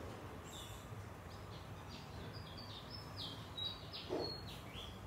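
Silicone spatula squeaking against a plastic tub as butter is scraped out: a run of short, high squeaks that jump in pitch, with a soft knock about four seconds in.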